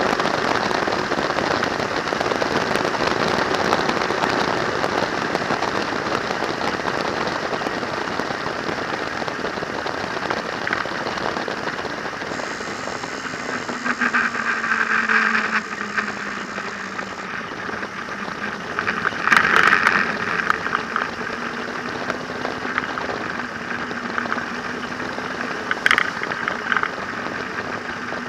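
Wind rushing over the handlebar-mounted camera's microphone while riding a trike, with the trike's engine running underneath. About halfway in the engine note falls as the trike slows, and the wind noise swells briefly several times.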